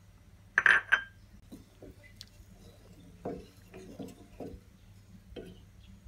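A metal saucepan of soy milk clatters loudly about half a second in, with a bright ringing clink. A wooden spatula then stirs the milk, knocking against the sides of the pot several times.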